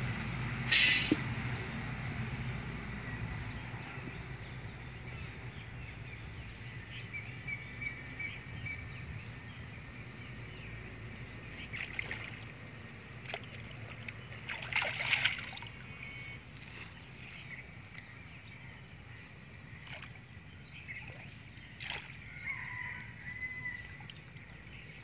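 Shallow water sloshing and splashing as someone wades and moves bamboo box fish traps, with a sharp knock about a second in and a louder splash about halfway through, among scattered small knocks.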